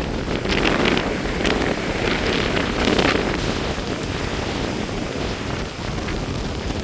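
Strong gusty wind buffeting the microphone in a storm, with louder gusts about half a second in and again around two to three seconds in.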